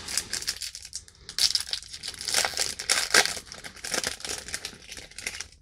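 Plastic-foil baseball card pack wrapper crinkling and tearing as it is opened, a dense run of crackles with a couple of short pauses.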